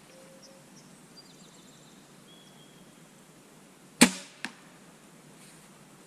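Horton Yukon SL crossbow fired once, a sharp crack of the string and limbs releasing about four seconds in, followed about half a second later by a fainter smack of the bolt striking the target downrange.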